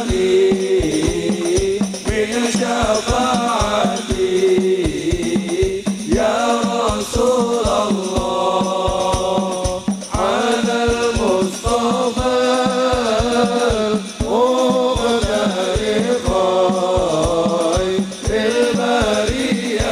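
A hadrah ensemble of rebana frame drums beating a fast, steady rhythm under men singing an Islamic devotional sholawat in phrases broken by short pauses.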